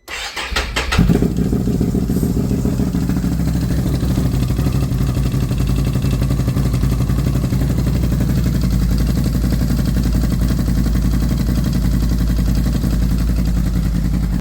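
Can-Am Renegade ATV's V-twin engine cranking briefly, catching about a second in and settling into a steady cold idle. This is its first start with a newly fitted STM primary clutch.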